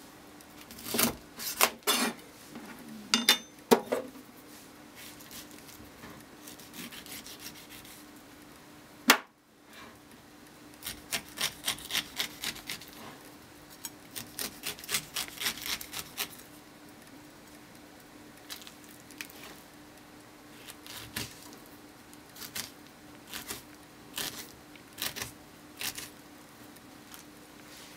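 Chef's knife cutting a pineapple on a plastic cutting board: the blade knocks on the board and slices through rind and flesh in irregular strokes. There is one loud knock about nine seconds in, and quick runs of short strokes in the middle.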